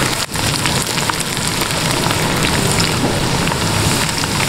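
Sliced onions, with garlic, ginger and green chilli paste, frying in plenty of hot ghee in a pot: a steady, loud sizzle full of small crackles as the onions go light brown.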